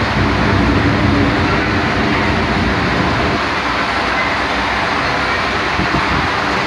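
Steam locomotive standing at the platform and venting steam: a steady hiss over a low rumble.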